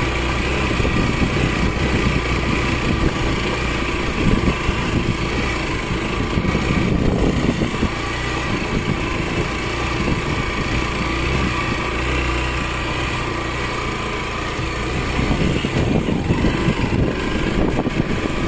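Motorcycle engine running steadily while the bike rides over a rough stone track.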